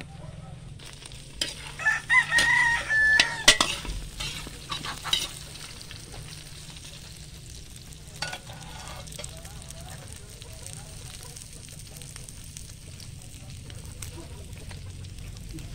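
A rooster crows once, about one and a half seconds in, over the steady sizzle of meat frying in a steel wok on a wood fire. A few sharp knocks follow just after the crow and again near the middle.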